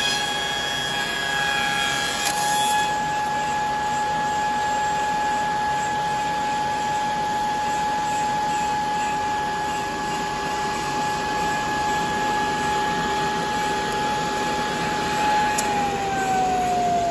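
Wooden round-rod milling machine running with a steady high whine over a constant noisy hiss. A small click comes about two seconds in. Near the end the whine falls steadily in pitch as the machine slows down.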